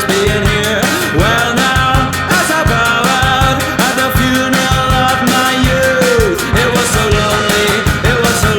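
Upbeat rock music with a steady drumbeat and a melody line over it.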